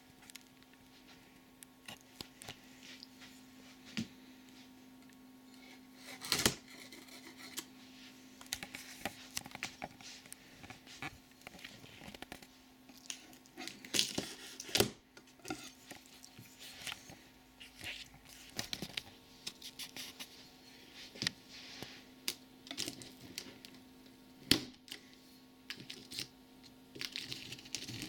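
A knife cutting the tape along the seams of a cardboard box, with irregular scratching and tearing and sharp knocks against the cardboard. The loudest knocks come about six seconds in, around the middle, and again near the end.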